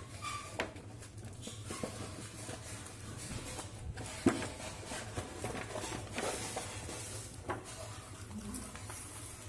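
Cardboard gift box and its plastic product tray being opened and handled: rustling, scraping and light knocks, with one sharper knock about four seconds in.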